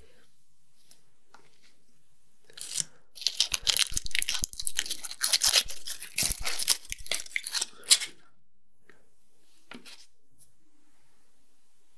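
Gold foil wrapper of a Ferrero Rocher chocolate crinkling and crackling as it is peeled off close to the microphone, starting about two and a half seconds in and ending with a sharp crack at about eight seconds.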